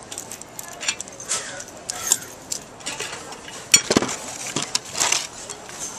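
Metal clinking and rattling as a bicycle cable lock and a key on a lanyard are handled: a string of sharp clicks, the loudest clack a little past halfway.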